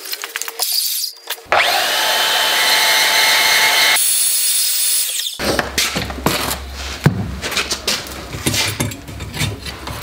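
Portable band saw starting about a second and a half in and running steadily for about four seconds as it cuts into a metal motorcycle speedometer bracket. After it stops, there is a low hum with scattered knocks and clicks of metal being handled.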